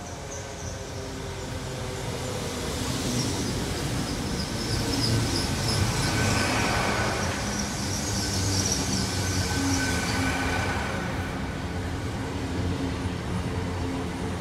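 Train running through the station, its low steady engine drone growing louder over the first few seconds, with high-pitched wavering squeals from the wheels from about three to ten seconds in.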